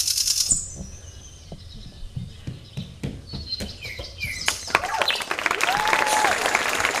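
Bird chirping in the dance piece's soundtrack, breaking off about half a second in, with a few short chirps later. An audience starts applauding about four and a half seconds in.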